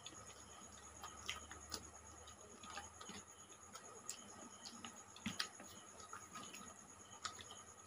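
Faint, scattered clicks and smacks of people eating rice and curry by hand: fingers mixing rice on plates, chewing and lip smacks. A faint steady high tone runs underneath.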